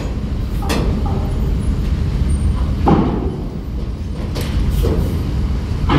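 Coach bus engine running with a steady low rumble as the bus rolls off the ferry, with a few short sharper sounds over it.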